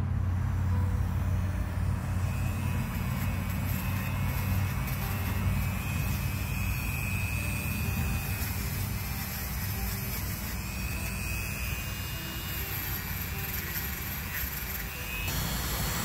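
Dremel rotary tool running steadily with a small wire brush attachment, scrubbing the rock matrix off a garnet crystal.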